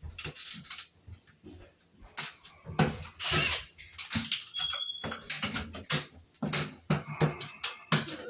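Handling noises close to the microphone: a run of knocks, clicks and rustles as tools and parts are picked up and moved about. There is a brief high whistle-like tone about four and a half seconds in.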